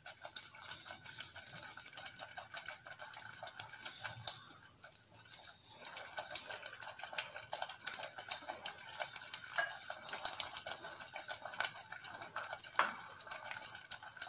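Wooden spoon stirring thick curry in a clay pot: rapid small clicks and scrapes, with a short break about five seconds in.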